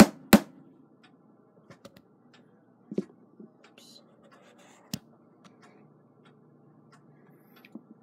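Light, sharp taps of a small tack hammer tapping a hairspring collet down onto a clock's balance staff; the last two taps come in the first half second. After them come faint clicks of small metal parts being handled, a light knock about three seconds in and a single sharp click about five seconds in.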